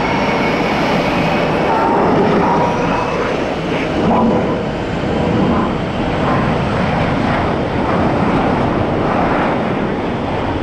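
EA-18G Growler and a second F/A-18-family jet taxiing on the ramp, their twin turbofans at low power: a loud, steady rush of jet noise with a faint turbine whine in the first few seconds.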